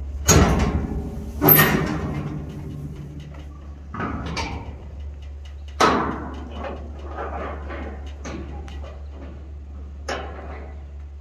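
Steel stock-trailer gate and latch being worked: two loud metal bangs in the first two seconds, the second ringing on briefly, followed by several lighter clanks and knocks over a steady low hum.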